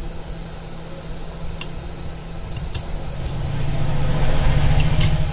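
Steady low mechanical hum that swells over the last couple of seconds, with a few light sharp clicks.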